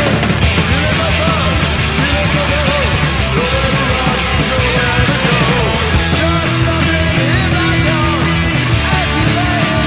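Speed metal recording playing loud and dense: a band with distorted electric guitars that runs without a break.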